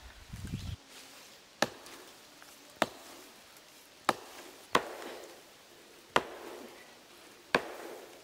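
Hatchet chopping into a fallen tree trunk: six sharp strikes, roughly one a second, each a crisp knock of blade into wood.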